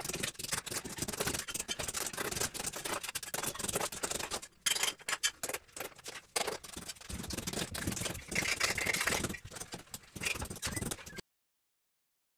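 Dense, irregular scraping and clattering of hand work with tools on metal and concrete. It cuts off abruptly to silence near the end.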